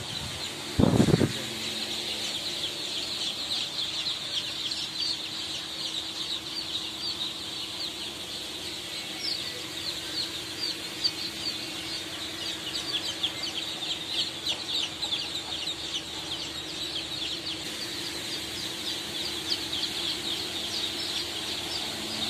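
Hundreds of young ducklings and chicks in a brooder pen peeping without a break, a dense high chorus of short cheeps. An electric pedestal fan hums steadily underneath, and there is a brief thump about a second in.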